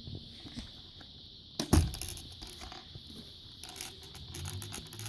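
Scattered clicks, taps and rattles of small hard objects being handled, with one louder thump about two seconds in and a quicker run of clicks near the end, where a faint electronic tune begins.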